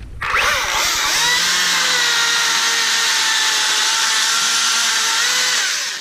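Makita DUC353 36-volt brushless cordless chainsaw starting up about a quarter second in and running steadily through a cut into a log, its motor whine dipping briefly as the chain bites, then stopping just before the end.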